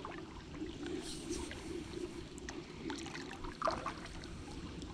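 Faint water lapping and trickling around a kayak, with scattered small clicks and knocks as fishing tackle is handled; one knock, a little louder, comes about three-quarters of the way in.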